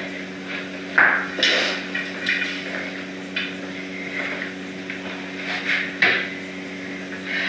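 Sharp knocks and scattered clatter of a broom and plastic dustpan being handled and set down, with footsteps on a laminate floor. The two loudest knocks come about a second in and about six seconds in, over a steady low hum.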